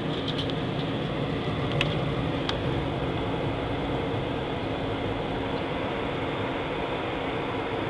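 Airliner cabin noise while taxiing: the steady rush and hum of the jet engines at taxi power and the cabin air. A few small clicks in the first few seconds.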